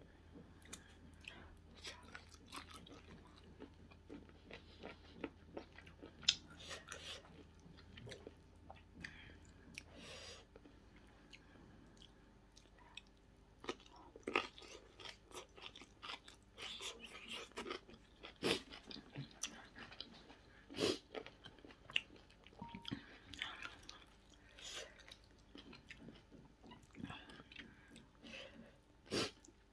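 A person chewing and biting food close to the microphone, with irregular crunches and small clicks, while eating grilled seafood and a shredded vegetable salad.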